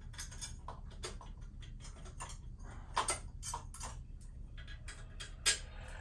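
Irregular light clicks and taps of tools and parts being handled during an engine teardown, with two sharper knocks about three seconds in and near the end.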